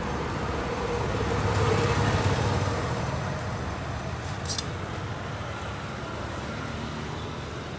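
Street traffic rumbling steadily, with a vehicle passing and swelling louder about two seconds in. A short sharp click about four and a half seconds in.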